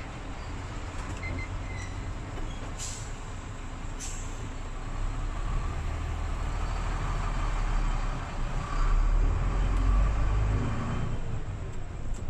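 Hino Profia truck driving along, its engine and road noise making a steady low rumble that grows louder about halfway through. Two sharp clicks come about a second apart, around three seconds in.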